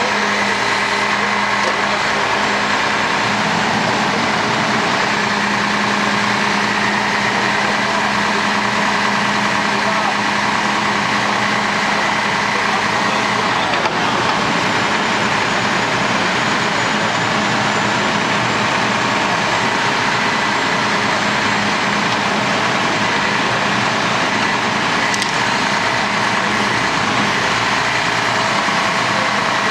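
Diesel engine of a Mack grapple truck running steadily, powering its hydraulic grapple crane as the grapple is worked onto a fallen tree's root ball.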